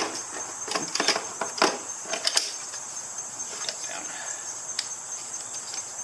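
Several sharp clicks and knocks of a screwdriver and hands against the scooter's plastic under-seat storage bin in the first couple of seconds, then a few faint ticks. A steady high chirring of insects runs underneath.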